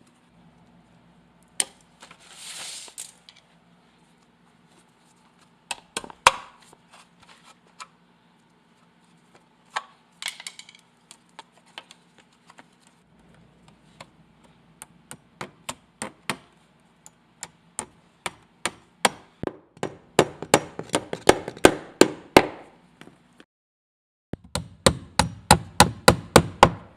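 Hammering on wood: scattered sharp blows at first, then a steady run of about four blows a second. After a brief gap comes another quick run. Two short scraping hisses come early on, over a faint steady hum.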